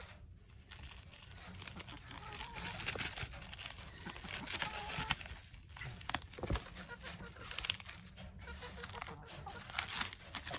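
Chickens clucking, with rustling and clicking handling noise throughout.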